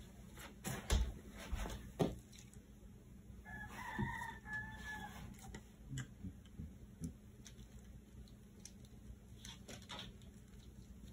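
Knocks and thumps of a plastic glue bottle being picked up and set down, loudest about one and two seconds in, then taps of a wooden stick stirring Mod Podge in the bottle. A faint drawn-out call of about a second and a half comes a few seconds in, in two parts.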